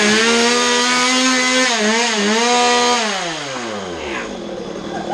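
Chainsaw engine revved up to full throttle and held there for about three seconds, with a brief dip near two seconds in, then released so the revs fall away toward idle.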